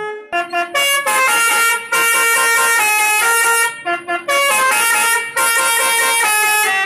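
Truck's basuri (telolet) multi-tone musical air horn playing a fast tune. The notes step up and down several times a second, in loud phrases separated by brief breaks.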